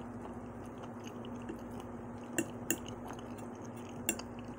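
A person chewing a mouthful of soft sliced rice cakes and kimchi, with a few short clicks from the mouth about two and a half seconds in and again near the end. A steady low hum runs underneath.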